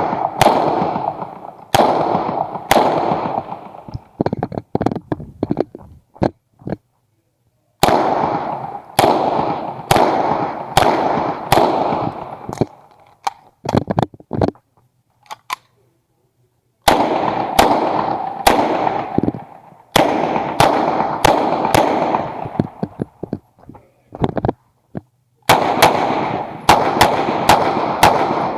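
Uzi Pro 9mm semi-automatic pistol fired in fast strings of shots, each shot ringing with echo. There are four main strings with scattered single shots between them and brief silent pauses, around 4 to 8 seconds in and again around 15 to 17 seconds in.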